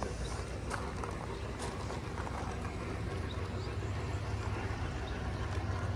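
Large-scale garden model train running on outdoor track: a steady low rumble with scattered light clicks.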